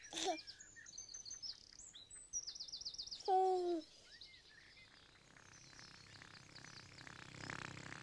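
Birds chirping and trilling in quick high tweets over a faint outdoor ambience. About three and a half seconds in comes a single short baby's coo, the loudest sound here, and faint music starts to build near the end.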